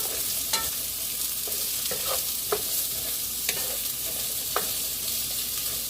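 Ginger, garlic and onion sizzling in hot olive oil in a pan, with a spatula now and then scraping and knocking against the pan as they are stirred to brown.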